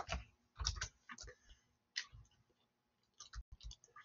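Faint, scattered clicks of a computer mouse being worked, with a quick run of small clicks about three seconds in.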